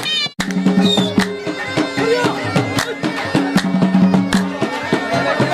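Background Saraiki folk music with a melody over a regular drum beat; it cuts out for an instant just after the start.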